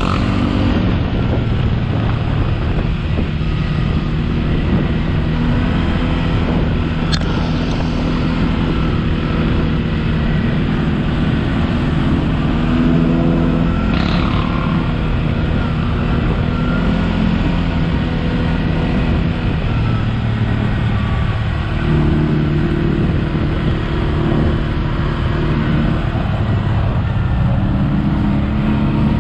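ATV engine running steadily under way, its note shifting with the throttle and rising around twenty-two seconds in. A short knock about fourteen seconds in.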